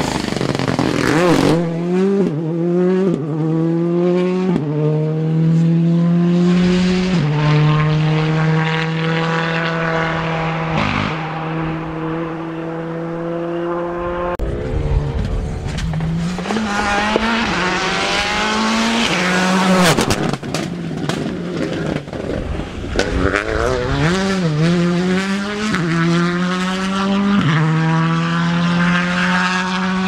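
Rally car engines at full throttle, the note climbing and dropping through a run of quick upshifts as each car accelerates past, with a second car's pass about halfway through. A few sharp cracks come about twenty seconds in.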